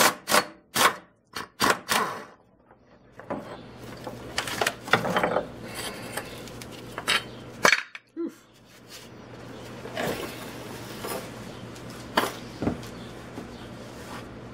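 Cordless impact wrench fired in several short bursts in the first two seconds, breaking loose a rear subframe bolt on a Hyundai Genesis Coupe. After that come scattered metallic clinks and scraping as the loosened bolt and tools are handled.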